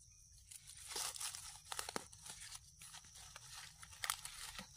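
Dry leaf litter rustling and crackling under hands digging mushrooms out of the forest floor, with a few sharper snaps.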